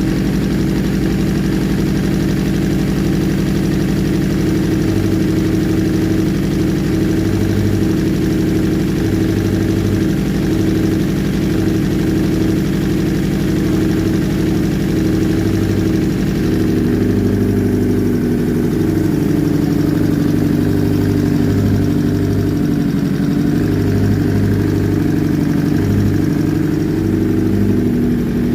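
An engine running steadily at idle, the upper part of its sound dropping away about seventeen seconds in.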